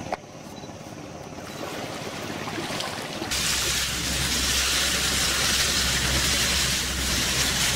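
Quiet riverside noise that builds slowly, then, about three seconds in, an abrupt change to the steady low drone of a river boat's engine under a loud rush of water and wind, heard from on board the moving boat.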